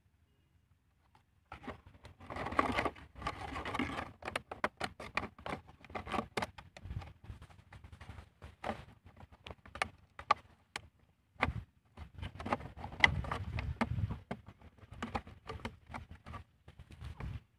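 Thin plastic bottle crinkling and clicking as hands press its cut-off top, turned neck-first, into the bottom half to make a funnel fish trap. An irregular run of quick crackles and taps starts about a second and a half in.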